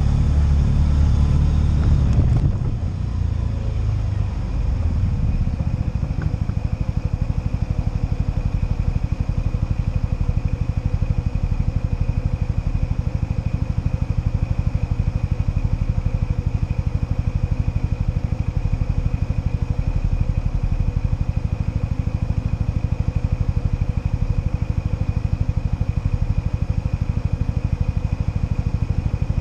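ATV engine running. It eases off about two seconds in, then runs on steadily with an even, rapid pulse.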